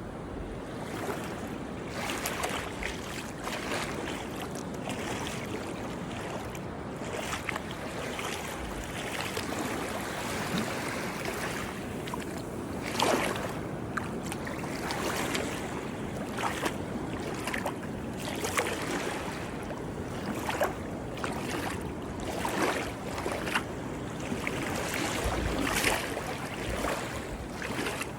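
Small Mediterranean sea waves washing and splashing, with irregular splashes every second or two over a steady wash of water.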